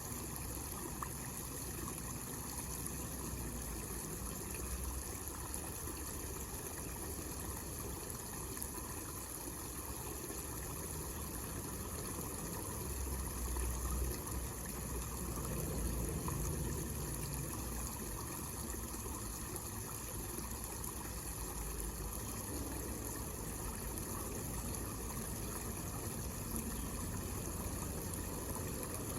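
Small homemade waterfall fountain: water spilling and trickling steadily into a pond basin. A low rumble swells briefly about halfway through.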